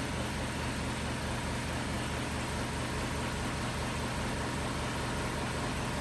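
LCD bubble-removing autoclave running under pressure during its timed cycle: a steady machine hum with a low pulsing drone and a hiss.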